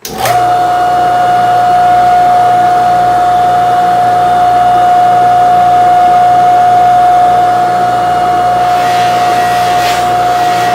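An electric power tool's motor switches on abruptly and runs steadily with a constant high whine. A little under a second before the end, and again at the very end, a hissy rasp is added on top.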